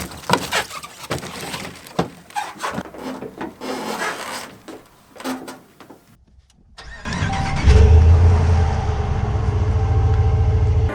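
A run of knocks and clunks for several seconds, then a short pause, and about seven seconds in an engine starts up and runs steadily and loudly.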